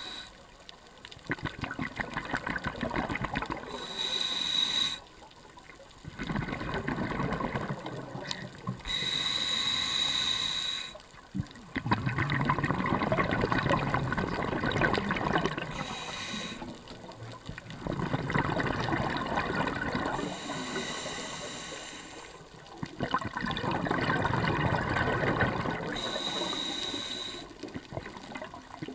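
Scuba breathing through a regulator, recorded underwater: a short hissing inhale through the demand valve alternates with a longer bubbling exhale, in a slow, regular cycle about every five to six seconds.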